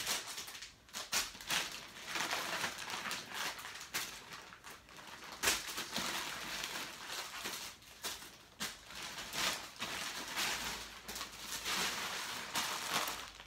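Plastic grocery bag and candy wrappers crinkling and rustling in irregular bursts as snacks are pulled out and spread around, with a few sharper crackles.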